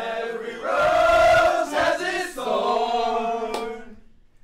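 A group of men singing loudly together without instruments, holding long drawn-out notes, the voices fading out near the end.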